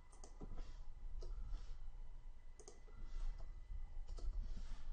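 A few sparse, soft clicks of a computer mouse and keyboard while code is edited.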